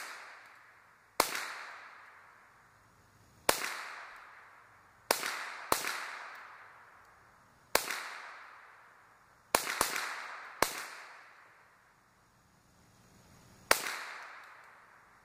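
GSG 522 .22 LR semi-automatic rifle fired in slow aimed single shots, about nine sharp cracks spaced one to three seconds apart, two of them in quick succession about ten seconds in. Each shot trails off in a long echo.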